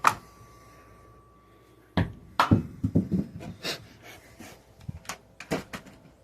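Series of sharp knocks and clatters of hard objects being handled: one click at the start, a quick cluster about two to four seconds in, then a few single clicks.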